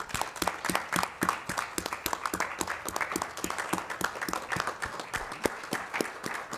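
Applause: a small group of people clapping steadily, many overlapping claps.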